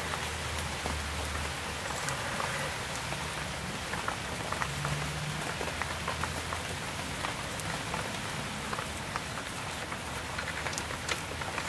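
Steady hiss with faint scattered metal clicks and taps as a castellated nut is worked off a front wheel hub spindle with channel-lock pliers.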